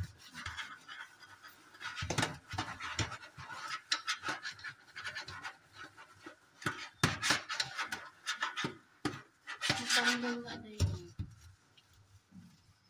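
A sponge scrubbing a metal mesh range-hood grease filter coated with salt, baking soda and vinegar, in a stainless steel sink. It makes an irregular run of scratchy strokes that dies away about eleven seconds in.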